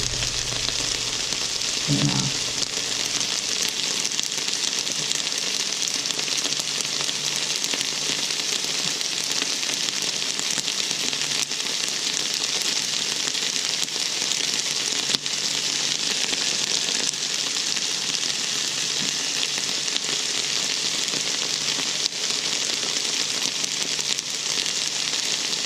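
Food sizzling steadily as it sautés in a hot frying pan.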